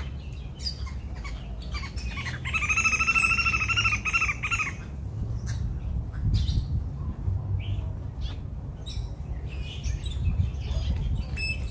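Birds calling in an aviary: many short chirps and tweets throughout, with one louder, wavering call lasting about two seconds a few seconds in, over a low rumble.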